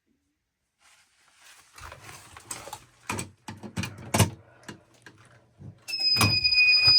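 Irregular knocks and rustling from handling during a smoke test. About six seconds in, a fire alarm sets off a steady, loud, high tone, the system going into alarm on the test smoke.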